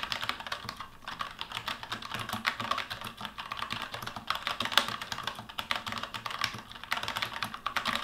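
Fast, continuous typing on a mechanical keyboard with tactile Gateron Brown switches and round typewriter-style keycaps: a dense, uneven run of key clicks.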